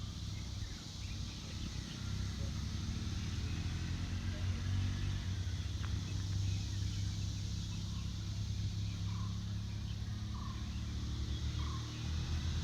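Outdoor hilltop ambience: a steady low rumble and an even high hiss, with a bird giving short calls about once every second or so from about nine seconds in.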